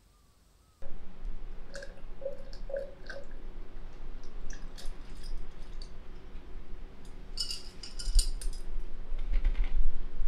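Ice cubes clicking against a glass of iced coffee as it is drunk, with ice being chewed, and a short clatter of ice in the glass about eight seconds in, over a low steady hum.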